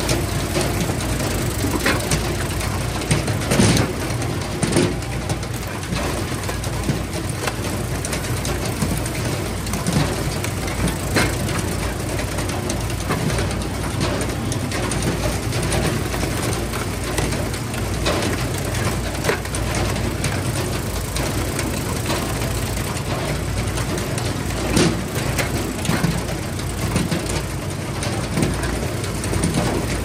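Engines of log-splitting machinery running steadily, with sharp cracks and knocks standing out every few seconds.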